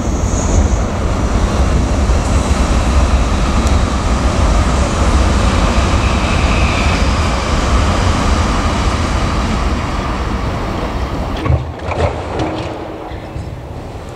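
Shinkansen bullet train passing: a steady rushing noise with a deep rumble that eases off about eleven seconds in. A few short knocks follow near the end.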